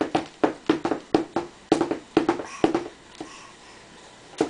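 A baby slapping her palms on a plastic high-chair tray in a quick rhythmic run of about three to four slaps a second, which stops about three seconds in, then one more slap near the end.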